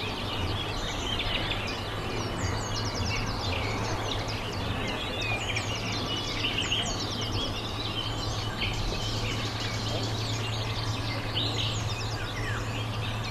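Small birds chirping and twittering, many quick high calls overlapping throughout, over a steady low hum.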